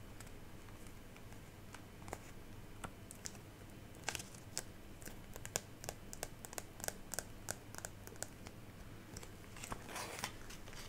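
Paper stickers being peeled, placed and pressed into a journal: scattered soft clicks and light crinkling. They are sparse at first and come thicker from about four seconds in.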